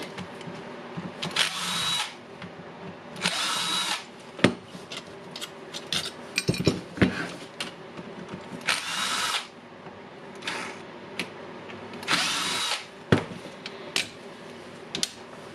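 Cordless drill-driver whirring in four short runs of under a second each, backing out screws, with small clicks and knocks of handling the tool and parts in between.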